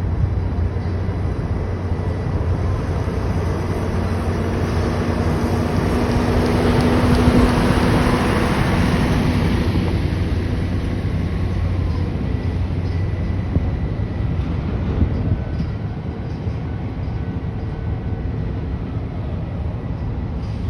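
Cargo-handling crane machinery running steadily with a low hum while lifting a ship's hatch cover. The noise swells for a few seconds midway through, with a tone rising over it, then settles back.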